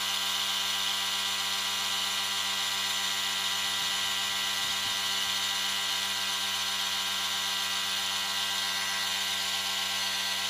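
Steady hum with a strong hiss from the air compressor that feeds the lacquer spray gun, running without change.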